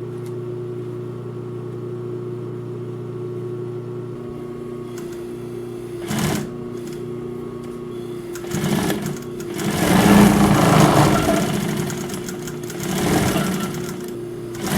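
Pfaff 134-0-6 industrial lockstitch sewing machine: its motor hums steadily. About six seconds in the machine makes a brief run, then from about eight seconds it sews in several short, louder runs through the layered denim and canvas scrap.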